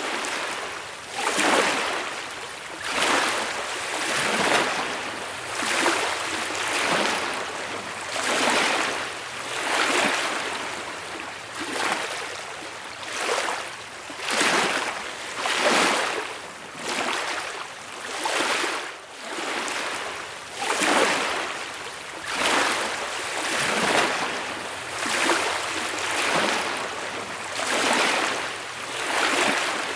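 Small lake waves lapping gently on a beach, each wave washing in with a soft hiss about every second and a half.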